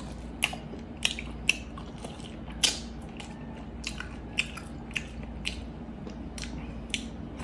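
Close-up chewing of braised pork hock (pata braised in Coca-Cola): wet mouth smacks and clicks, roughly two a second and unevenly spaced, the loudest a little under three seconds in.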